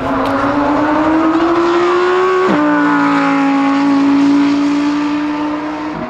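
Lamborghini Huracán EVO Spyder's 5.2-litre V10 accelerating, the revs climbing steadily until a quick upshift about two and a half seconds in drops the pitch sharply. It then pulls on at nearly steady revs in the next gear.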